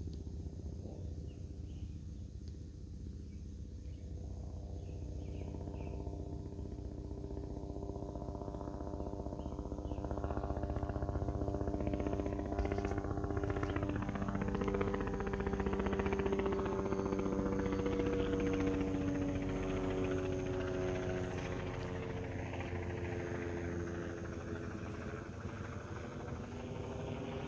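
An aircraft droning overhead with a steady multi-toned hum that grows louder for about ten seconds and then eases off as it passes, its tones sliding slowly lower.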